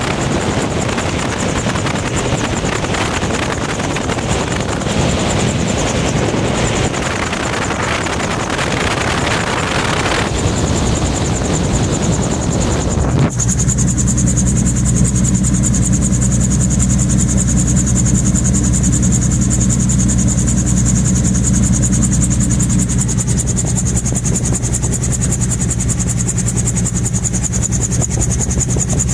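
Gyrocopter in flight with its engine throttled back to idle: at first a loud rush of wind, then about halfway a sudden change to a steady hum of engine and rotor with less wind.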